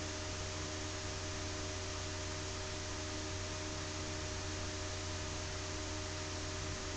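Steady background hiss with a low electrical hum from the recording microphone; no other sound.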